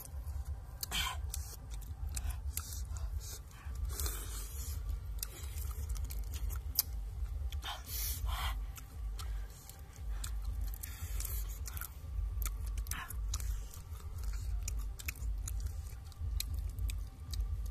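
Chewing and crunching on cooked crab, with scattered sharp cracks as crab shells and legs are broken open by hand, over a steady low rumble.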